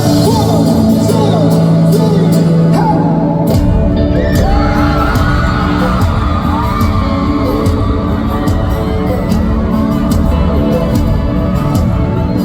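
Live folk-pop band playing with a sung melody; the fuller low end of the band comes in about three and a half seconds in.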